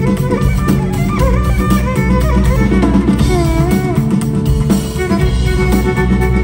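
Live band music: a melody sliding between notes, in the manner of a violin, over drum kit and sustained keyboard notes with a steady beat.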